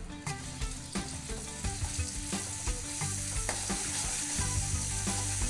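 Ground garlic and candlenut spice paste sizzling in hot oil in an aluminium wok. A metal spoon scrapes and clicks against the pan as the paste is stirred. The sizzle grows stronger after about a second.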